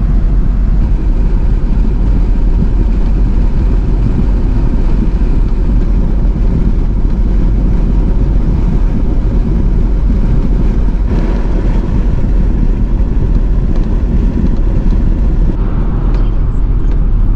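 Pickup truck cruising at highway speed, heard from inside the cab: a steady, loud, low rumble of road and engine noise.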